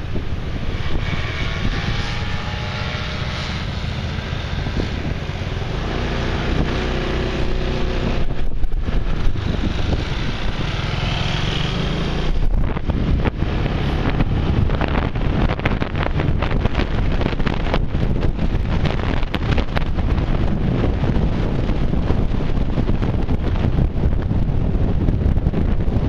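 Motor scooters riding in a group, their engines running with a tone that rises and falls in the first half. From about halfway, wind buffeting the microphone of the moving scooter takes over.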